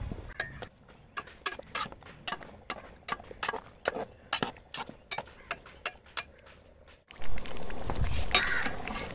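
Sharp, irregular pops and crackles, about three a second, from a pot of thick fish-head curry simmering over a wood fire. Near the end, after a cut, a louder steady bubbling.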